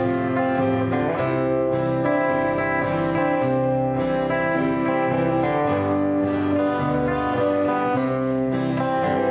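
Country-style acoustic guitar strumming an instrumental passage, with a bass line moving underneath.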